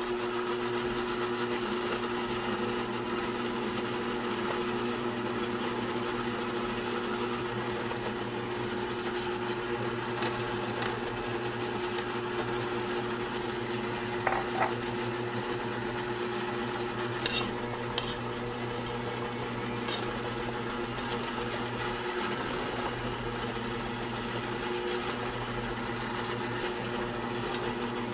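A 350-watt Sunbeam MixMaster Heritage Series stand mixer's motor runs steadily at a raised speed with its dough hooks kneading atta dough. A few brief clicks come as a spatula pushes the dough against the steel bowl.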